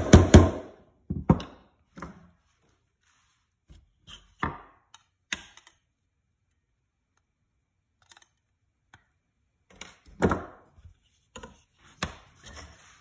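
Soft-faced mallet tapping on a ukulele fretboard, with a quick run of strikes stopping about half a second in. A few scattered single knocks follow, then a quiet stretch. A small cluster of knocks comes near the end, the loudest about ten seconds in.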